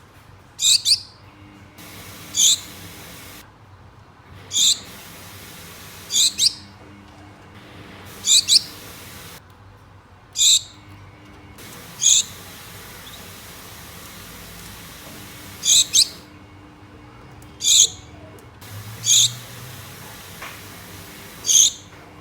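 A pair of Gouldian finches calling to each other: short, high-pitched calls, often two in quick succession, repeating about every two seconds.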